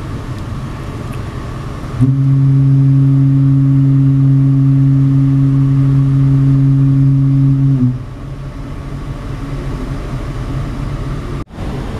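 Ship's horn of the BC Ferries vessel Spirit of British Columbia (its new 2018 horn) sounding one long, low, steady blast of about six seconds, starting about two seconds in and cutting off sharply, over a steady rumble of wind and ship noise.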